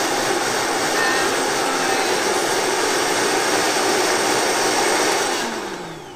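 High-powered countertop blender running at full speed, grinding dry nori sheets with sweet potato starch into a powder. Near the end it is switched off and the motor winds down with a falling whine.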